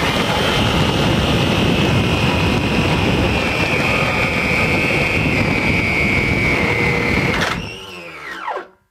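3D-printed 400 mm electric ducted fan, driven through a planetary gearbox, running hard with a steady high whine over a rush of air. About seven and a half seconds in there is a sudden sharp click. The noise then drops and the whine slides quickly down in pitch as the fan winds down to a stop.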